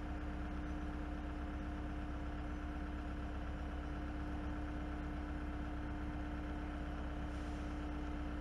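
Heavy diesel engine of paving machinery running steadily at a constant speed: a low rumble with a steady hum that does not change.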